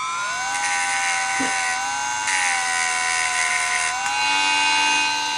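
High-speed handheld rotary tool whining steadily with a small abrasive bit as a clear plastic LED is ground shorter against it. There are two stretches of grinding hiss, and the motor pitch sags under load. The tool winds down at the very end.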